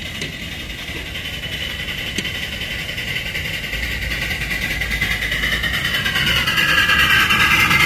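1:12 scale live steam locomotive running on 4.75-inch gauge track with a steady running noise that grows louder as it approaches and draws close.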